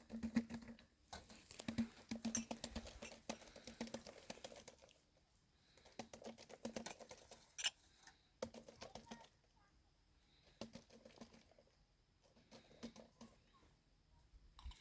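Irregular bursts of dry crackling and clicking, with quieter gaps between the bursts.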